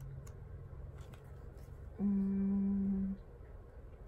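A woman hums one steady, level "mmm" for about a second, about halfway through, while the pages of a spiral-bound sticker album rustle faintly.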